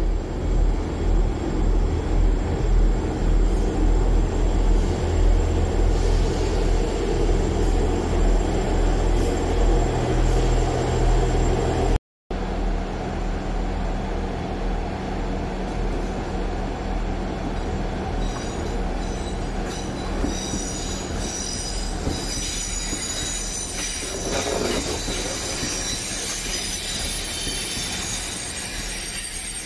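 Diesel multiple-unit trains at a station platform: a diesel unit's engine runs loudly as it moves along the platform. After a cut, a steadier engine hum continues, joined from about halfway by high-pitched squealing of wheels on the rails as another unit pulls in.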